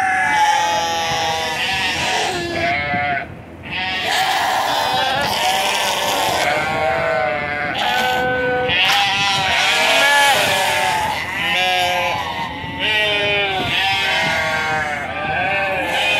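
A flock of sheep bleating, many overlapping calls almost without pause, with one short lull about three seconds in. The sheep are calling for their feed as it is brought to them.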